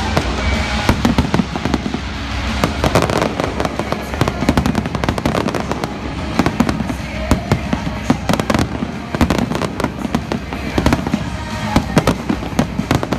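Fireworks barrage: many aerial shells and fountains going off at once, a dense, unbroken run of sharp bangs and crackles.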